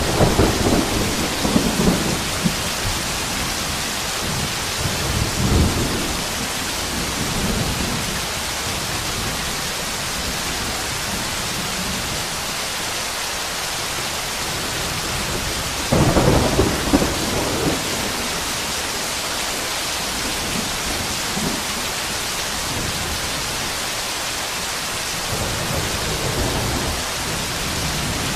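Heavy monsoon rain falling in a steady downpour, with several rumbles of thunder: one at the start, one about five seconds in, a stronger one about sixteen seconds in, and another near the end.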